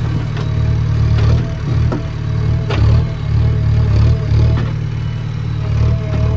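JCB 3DX backhoe loader's diesel engine running under hydraulic load, its low rumble swelling and easing as the boom works, while the bucket dumps cow dung into a tractor trolley and swings back to dig. Several sharp knocks come from the bucket and falling clumps.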